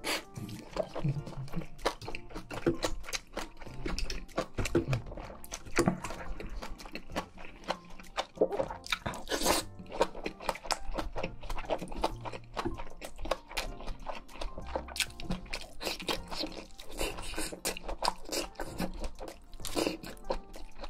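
Close-miked eating sounds: a person biting and chewing crunchy food, with many short sharp crunches and wet chewing noises, over soft background music.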